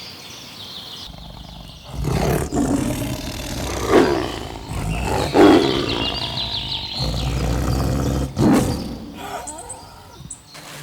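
A large animal giving several low, rough calls in a row, with a small bird trilling in the background around the middle.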